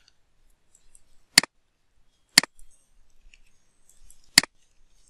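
Computer mouse clicking: three sharp single clicks, with faint keyboard tapping between them as a name is typed into a form field.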